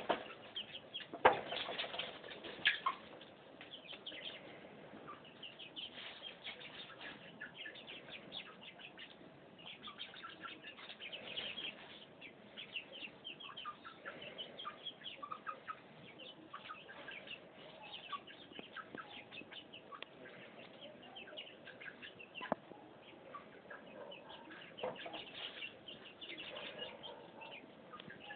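Chickens calling with many short, high chirps throughout. Two loud knocks or wing flaps come in the first three seconds.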